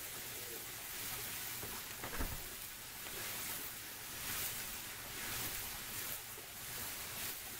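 Chopped breakfast sausage sizzling on a hot gas griddle's flat top: a steady hiss that swells and fades, with one soft knock about two seconds in.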